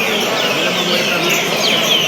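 Many songbirds chirping and singing at once: a dense, steady chorus of short, quick falling notes that overlap.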